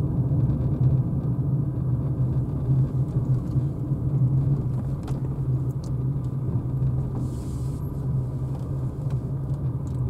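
Steady low rumble of road and tyre noise heard from inside a Renault Zoé electric car's cabin as it drives slowly.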